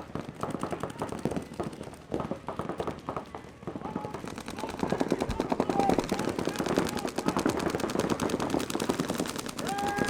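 Several paintball markers firing in rapid streams of shots, the firing growing denser and louder about halfway through.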